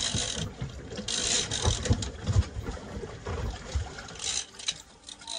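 A big-game fishing reel being cranked, its gears and ratchet clicking, as a hooked small shark is wound in to the boat. Irregular low thumps sound underneath.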